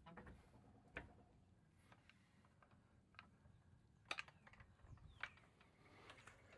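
Faint, scattered metallic clicks and light knocks, roughly one a second, with two close together about four seconds in: small metal parts or tools being handled.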